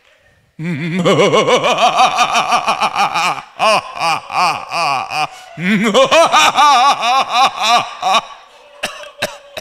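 A man laughing hard into a microphone over a PA, in long runs of rapid 'ha-ha-ha' pulses, about five a second, with the pitch swinging up and down. The laughter breaks off briefly twice and stops about eight seconds in, followed by a couple of sharp clicks.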